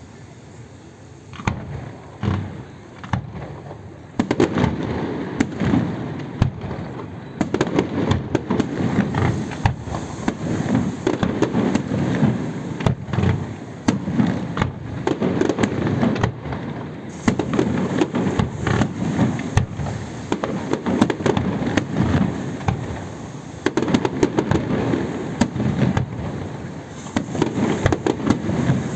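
Aerial fireworks display: a few separate bangs in the first seconds, then from about four seconds in a dense, continuous barrage of booms and crackling shells.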